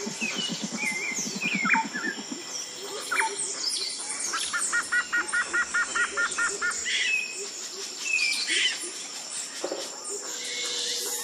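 Several wild birds chirping and whistling, one of them giving a quick run of about ten repeated notes midway, over a steady high-pitched whine. A low, fast rattle sounds in the first two seconds.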